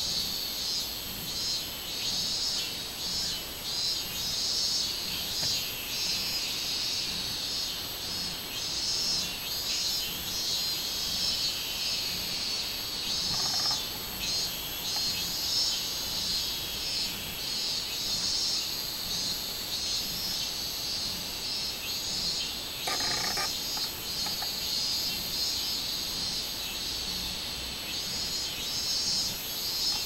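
Robust cicadas (minmin-zemi) singing in a dense chorus: a continuous high, pulsing buzz that swells and fades without a break.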